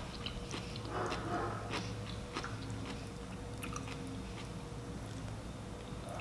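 Close-miked chewing and biting of a seafood boil, with scattered small clicks and mouth sounds.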